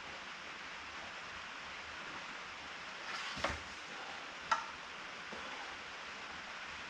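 Two sharp clicks about a second apart, over a steady low hiss.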